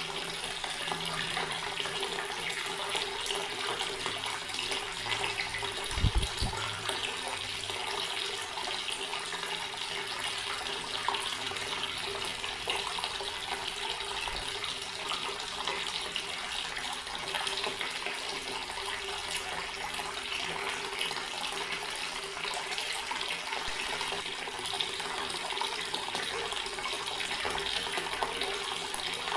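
Water running steadily from an outdoor garden tap, an even splashing rush, with one brief low thump about six seconds in.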